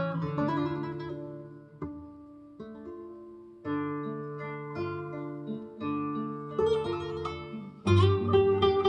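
Recorded plucked-string music played back through JBL 4309 loudspeakers: single notes and chords start sharply and ring out, getting louder about eight seconds in.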